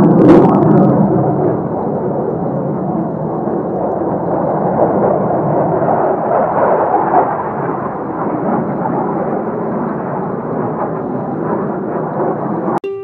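Several military fighter jets flying over, a loud, deep rolling roar that is strongest at the start and slowly eases off. Plucked-string background music cuts in right at the end.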